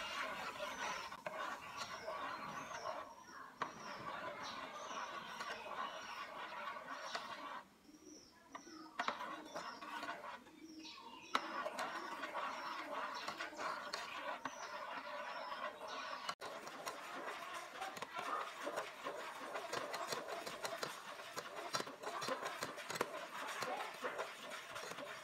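Small birds chirping over and over in short repeated calls, over the sound of a metal ladle stirring and clicking against an aluminium pot of boiling energy drink; the clicks grow denser in the last third.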